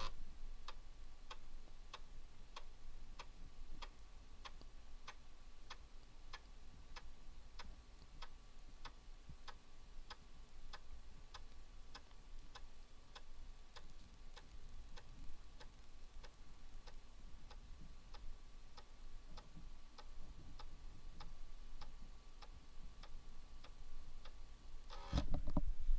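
Commodore 1541-II floppy drive's read/write head stepping track by track while it dumps a 40-track disk. It makes a regular click roughly one and a half times a second, one click per track. A louder burst of noise comes just before the end.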